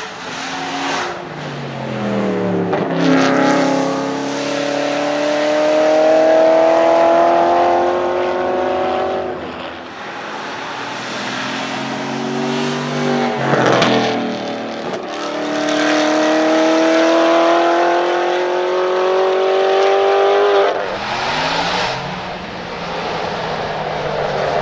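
Aston Martin Vantage AMR Pro's 4.7-litre V8 accelerating hard through the gears: the engine note climbs in three long pulls, each broken by a gear change, with one sharp crack at a shift. The revs drop away near the end.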